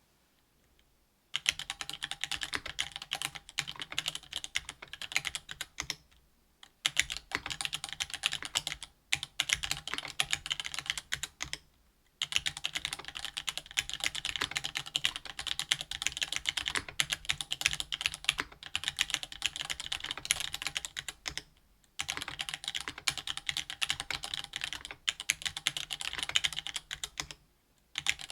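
Fast typing on a RAMA THERMAL mechanical keyboard with stock Gateron Black Ink linear switches in an aluminium plate and GMK keycaps, a dense run of keystroke clacks. It begins about a second in and stops for short pauses a few times.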